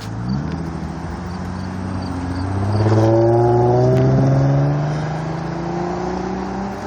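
Lexus car driving past under acceleration: the engine note climbs, is loudest about three to four and a half seconds in as its pitch drops with the pass, then fades away.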